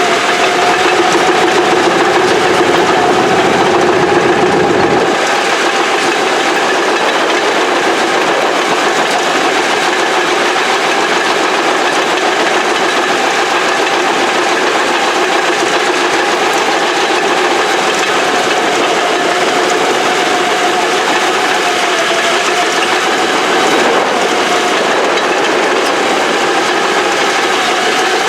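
Old Caterpillar heavy-equipment diesel engine running steadily with a wavering whine over its clatter; a deeper rumble drops away about five seconds in.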